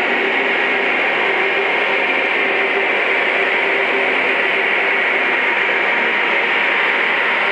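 Lionel Legacy O-gauge ES44 model diesel locomotives in a lashup running past on three-rail track, giving a steady noise that mixes wheel and motor rumble with the onboard sound system's diesel engine sound.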